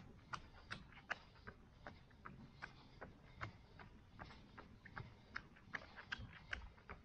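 A runner's footsteps: a light, short click with each footfall, close to three a second, at an even running cadence.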